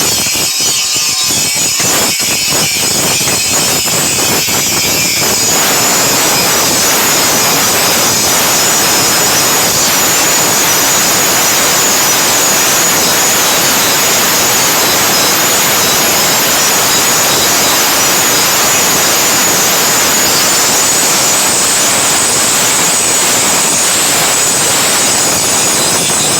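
Power grinder working the steel of a machete blade: a loud, steady grinding hiss. It changes about five seconds in from a narrower, scratchier sound to a fuller, even one.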